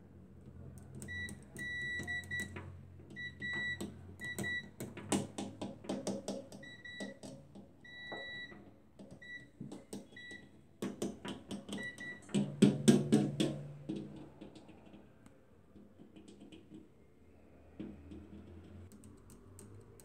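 Digital multimeter's continuity beeper sounding in short, broken high beeps as a test probe is scraped over the microwave oven's bare metal, mixed with scratchy clicks of the probe tip. Each beep marks continuity through the oven's ground path. The beeps stop about twelve seconds in, followed by louder handling knocks.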